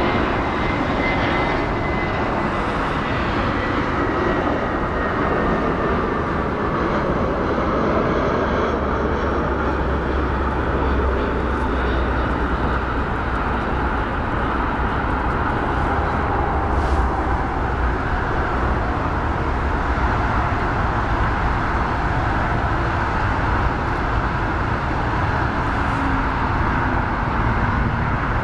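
Jet engines of an Iberia Airbus A320-family airliner on final approach with gear down, passing close by: a steady rush of engine noise with a high whine that slowly falls in pitch as it goes past, and a deep rumble strongest in the middle.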